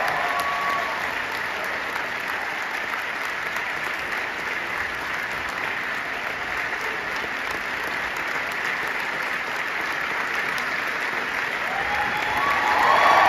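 Large opera-house audience applauding steadily, growing louder near the end.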